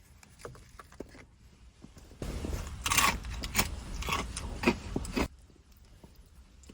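Crunching and chewing Takis rolled tortilla chips close to the microphone, quiet at first, with loud crunches from about two to five seconds in.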